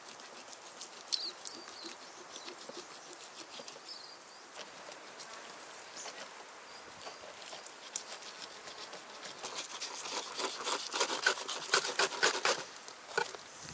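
Knife filleting a large blue grouper on a folding table: scattered clicks, then a dense run of rasping, crackling cuts through skin and along the bones, louder near the end.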